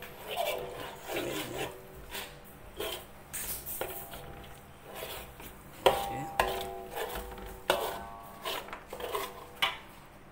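Metal ladle stirring thick spice paste in a large metal wok, scraping and knocking against the pan at an irregular pace, the wok ringing briefly after many of the strokes; the loudest knock comes about six seconds in.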